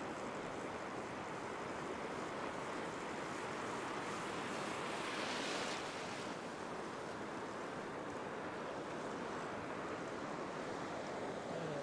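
Ocean surf washing and breaking in shallow water, a steady hiss of broken waves, with a louder rush of a wave washing through about five seconds in.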